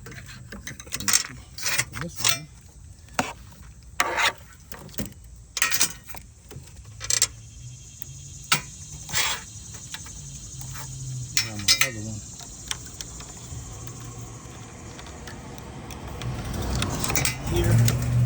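Small metal tools and parts clinking and tapping in scattered sharp clicks while working at a car's front bumper. A steady low hum swells up near the end.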